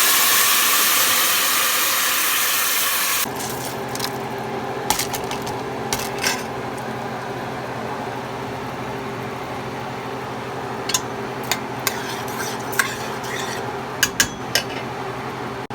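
A cup of water poured into a hot pot of oil-fried onions and spices, hissing and sizzling loudly for about three seconds before it cuts off. Then a spoon taps and scrapes against the pot a number of times as the rice is stirred.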